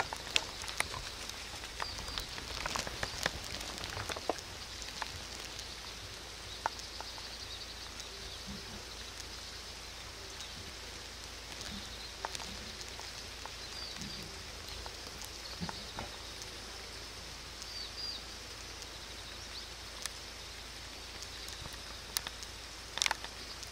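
Outdoor ambience: a steady hiss with scattered clicks and rustles, a few faint short high chirps, and a louder cluster of clicks near the end.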